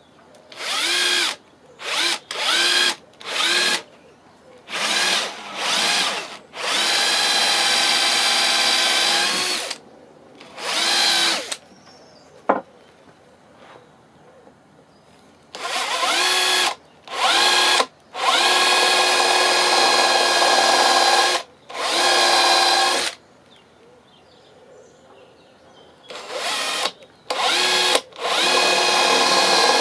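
Electric drill run in repeated trigger pulls: several short bursts, then longer runs of a few seconds, each whining up to speed and holding a steady pitch. There is one sharp click between runs.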